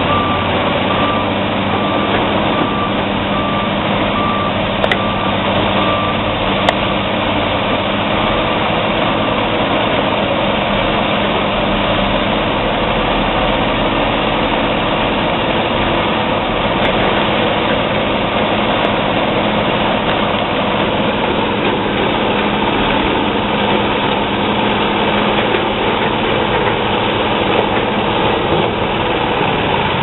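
Caterpillar D7G bulldozer working the ground with its ripper, its diesel engine running steadily under load throughout. A reversing alarm beeps about once a second for roughly the first nine seconds, then stops.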